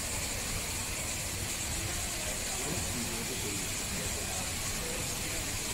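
Steady background hiss with faint, distant voices murmuring underneath.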